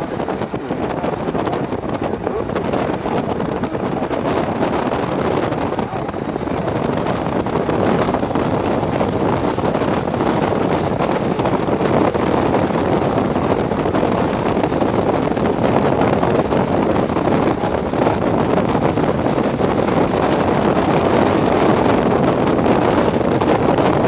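Steady rushing wind noise that grows slowly louder over the span.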